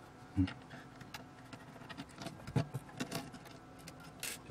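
A screwdriver and hands working on the metal chassis and circuit board of a vintage avionics receiver, making a soft knock about half a second in and then scattered light clicks and taps.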